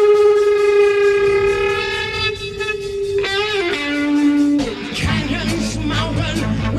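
1960s psychedelic rock recording: a long held note slides down in pitch about three seconds in, then the full band comes back in just under five seconds in.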